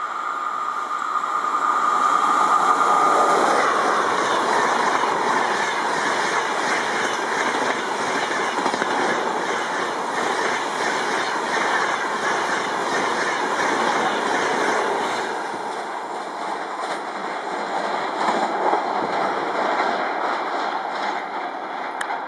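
Duronto Express passenger coaches rushing past at about 130 km/h behind a WAP4 electric locomotive: a loud, steady roar of wheels on rail with clickety-clack over the joints, easing a little after about fifteen seconds.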